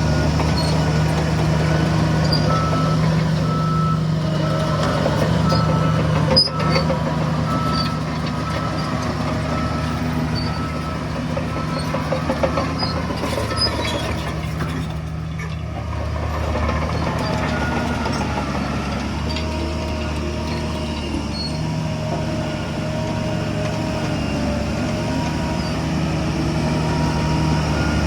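Heavy diesel machinery running steadily, with a reversing alarm beeping in runs of short, evenly spaced beeps. A single sharp knock about six seconds in.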